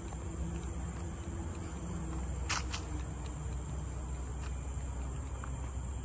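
Tropical insects, crickets or cicadas, keeping up a steady high drone over a low rumble. Two sharp clicks come close together about two and a half seconds in.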